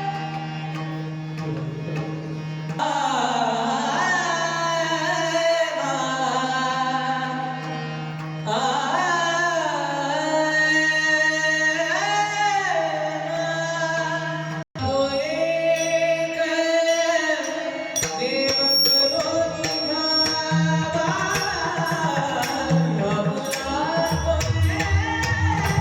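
Devotional abhang singing: a solo voice sings long, bending melodic phrases over a steady drone. After a brief dropout about 15 seconds in, mridang drumming and sharp high metallic strokes join in rhythm under the voice.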